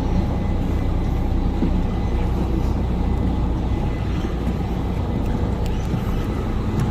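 Passenger ferry's engine running with a steady low drone.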